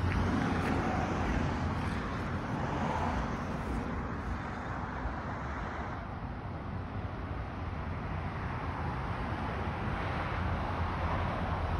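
Steady outdoor background noise, a low rumble with a soft hiss over it, easing a little in the middle and building again near the end.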